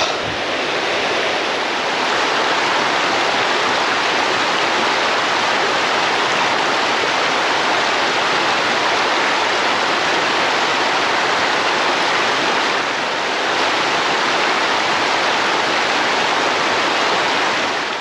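Mountain stream water rushing, a loud, steady flow.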